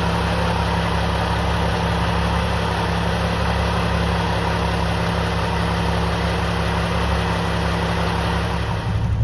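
New Holland marine engine running at a steady idle, tested after its heat exchanger has been refitted with a new tube stack. Its note shifts slightly just before the end.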